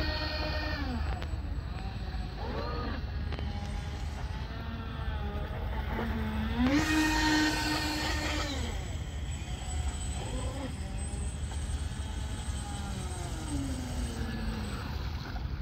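Twin brushless outrunner motors driving the water jets of a radio-controlled boat, whining and rising and falling in pitch with the throttle. The whine is loudest about seven seconds in, where it holds a higher pitch for about two seconds before dropping back. A low wind rumble on the microphone runs underneath.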